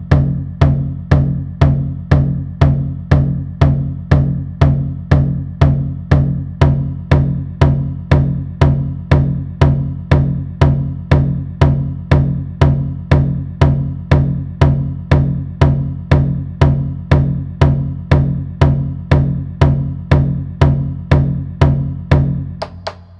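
Deep drum beaten in a steady, even pulse of about two strokes a second, each stroke ringing low. The beat dies away near the end.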